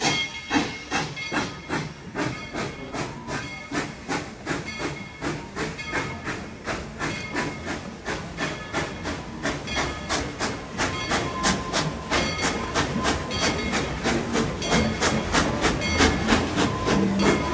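Steam locomotive working, its exhaust chuffing in an even beat of about three a second over a steady hiss of steam, growing louder through the second half.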